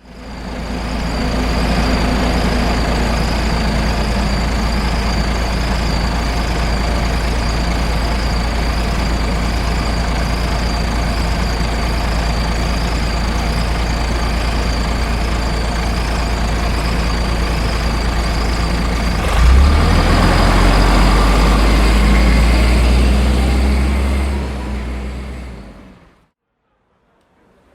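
A heavy vehicle's engine rumbling steadily, with a constant high whine over it. About two-thirds of the way through there is a sudden knock, after which the deep rumble shifts and grows louder before the sound fades out.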